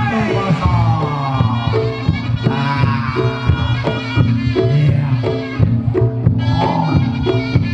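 Reog Ponorogo gamelan music: a slompret shawm plays a gliding melody over drums and gongs keeping an even beat of about two strokes a second.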